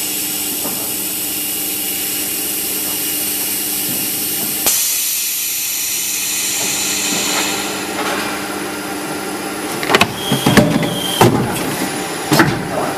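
Automatic extrusion blow molding machine running: a steady hiss with a low, even hum, and one sharp click about five seconds in. From about ten seconds in, a quick, irregular series of loud clacks and knocks from the machine's moving parts.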